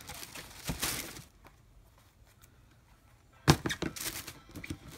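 Wrapping paper rustling and crinkling for about a second as it is pulled from a cardboard shoebox, then, about three and a half seconds in, a sharp knock followed by a few softer knocks and rustles as the sneakers are handled over the box.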